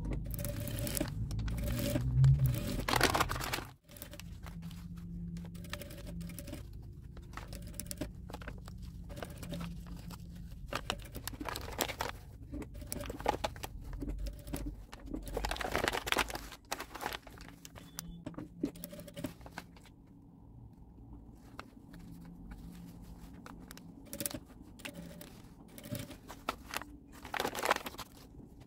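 Crumpled brown kraft paper crinkling and rustling as it is handled in irregular bursts, loudest near the start, about halfway and near the end, over a faint low hum that comes and goes.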